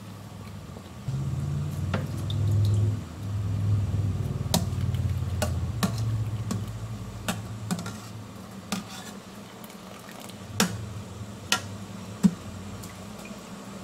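Water boiling in a stainless steel pot, a low rumble that is strongest in the first half. Over it come sharp clinks of a wire mesh skimmer against the pot and water dripping as cooked taro cakes are lifted out; the loudest clink comes near the end.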